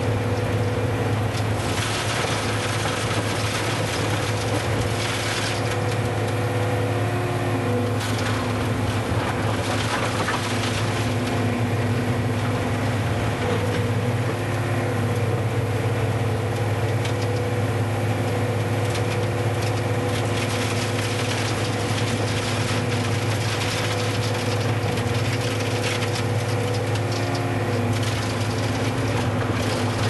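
Skid steer engine running steadily while its Sweepster hopper broom turns and sweeps gravel, with irregular clicks and crunches of stones over the engine note. The engine's pitch shifts slightly now and then.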